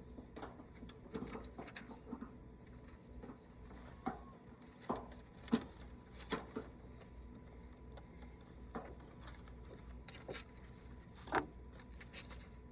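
Scattered small clicks and knocks, about eight in all, from hand tools and parts being handled during wiring work.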